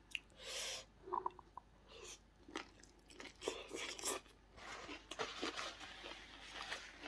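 Close-up eating sounds: chewing, crunching and wet mouth noises in irregular bursts as mouthfuls of a seafood salad with shredded vegetables are eaten.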